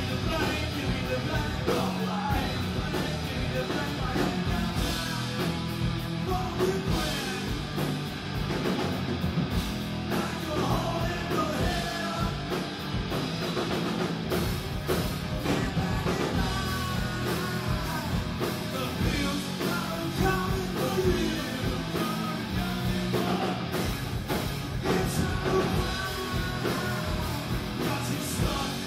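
Rock band playing live: electric guitars, bass and drums, with a singer.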